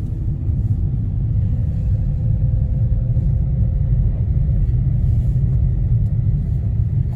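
Car driving along a road: a steady, loud low rumble of engine and road noise.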